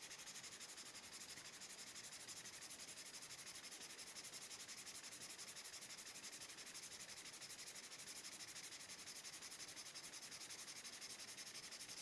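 Nail file rubbing back and forth in quick, even strokes over a paperback manga's page edges, sanding away an ink stamp. The scraping is faint.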